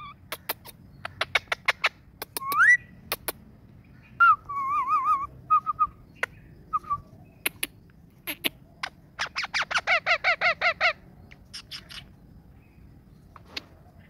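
Indian ringneck parakeet calling: wavering whistle-like notes, then a rapid run of short repeated chirps, about seven a second, about nine seconds in. Sharp clicks are scattered through.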